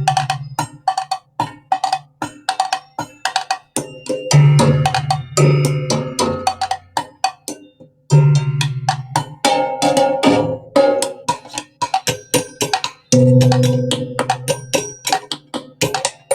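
Percussion music: a steady beat of sharp, ringing strikes, with a low sustained bass part coming in and out in stretches.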